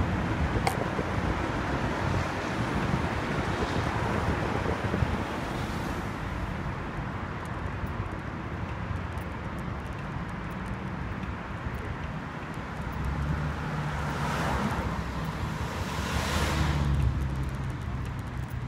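Wind buffeting the microphone over steady street traffic noise. A vehicle passes with a louder swell of engine and tyre noise near the end.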